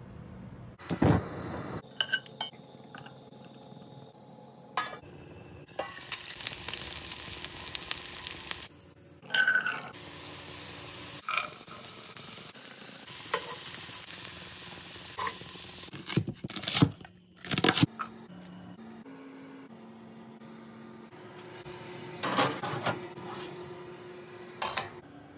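Food frying in a nonstick sauté pan: loud sizzling that swells and fades in stretches, with a utensil stirring and several sharp knocks against the pan.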